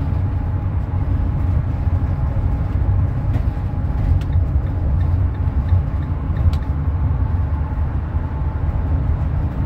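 Steady low road and engine rumble heard from inside a vehicle cruising on a freeway, with a faint steady tone above it.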